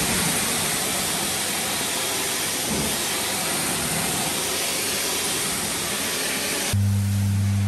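Pressure washer jet spraying water against a boat hull: a loud, steady hiss. Near the end the hiss cuts off abruptly and a steady low hum takes over.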